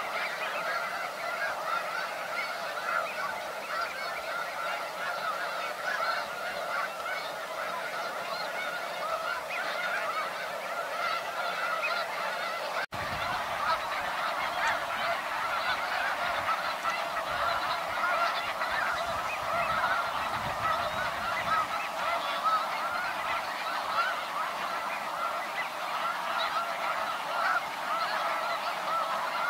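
A large flock of snow geese calling all at once: a dense, continuous din of overlapping honks, broken for an instant a little before halfway.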